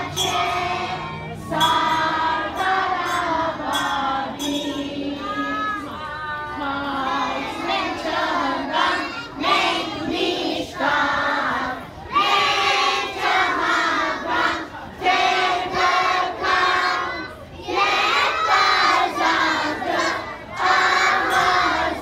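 A group of young children singing together in unison, in short sung phrases.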